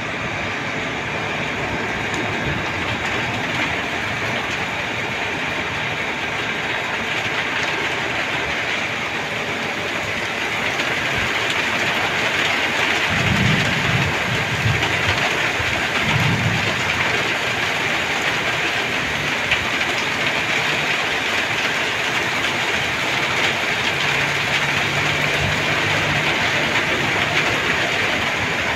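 Steady rain falling on a river's surface, an even hiss that grows louder about a third of the way through. A few low rumbles come about halfway through.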